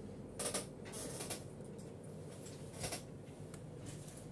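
Small metal hand tools handling a gold chain on a jeweller's bench: three short, faint scrapes and clicks, about half a second in, at about a second, and near three seconds, over a low steady hum.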